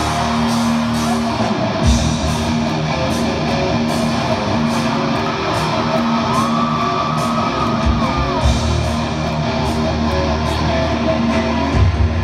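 Live rock band playing loud through an arena sound system: guitar over a steady drum beat, echoing in the large hall, with heavy bass coming in strongly near the end.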